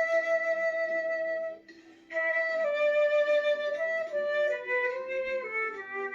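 Flute playing a slow melody. A long held note is followed by a brief pause for breath about a second and a half in, then a phrase that steps downward note by note.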